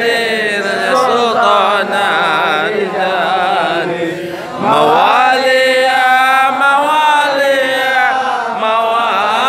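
Men's voices chanting a melodic Arabic devotional invocation, with long wavering notes. The line breaks off about four seconds in and starts again on a rising note.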